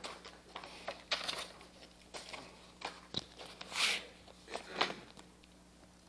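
Paper rustling and hymnal pages being turned, among scattered shuffles and clicks, with a sharp knock about three seconds in.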